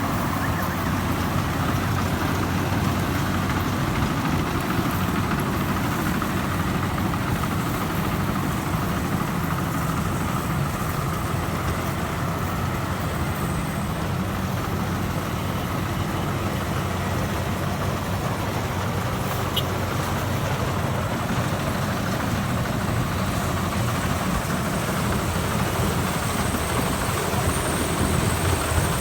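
Rice combine harvester running steadily as it harvests, a constant low engine drone with a slight rise in loudness near the end.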